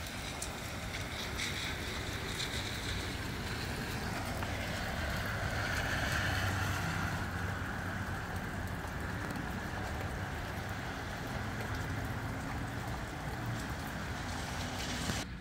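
Gusty wind rushing through trees, swelling into a stronger gust about five to seven seconds in and easing off again, with a low rumble of wind buffeting the microphone.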